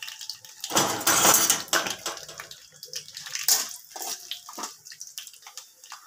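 Nuts, dals and dried red chillies frying in hot oil in a steel kadai: sizzling that surges loudly about a second in, with sharp crackles as the seeds splutter and a steel spoon scraping and clinking against the pan as it stirs.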